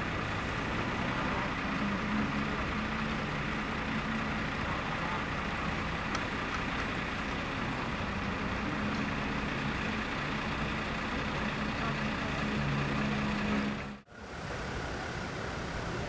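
Steady low hum of idling vehicle engines. The sound drops out abruptly about fourteen seconds in, then resumes more weakly.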